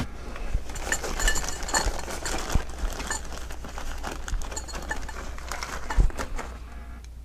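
Rummaging in a backpack: fabric rustling and handling noise with small hard parts clinking and knocking, the sharpest knock about six seconds in.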